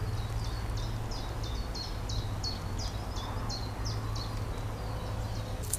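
A small songbird singing a rapid, even series of short, high, falling notes, about three or four a second, over a faint low rumble of wind.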